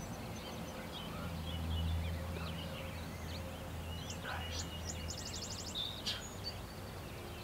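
Songbirds calling and chirping in spring woodland, with a quick dry trill about five seconds in. A low steady drone runs underneath for the first few seconds.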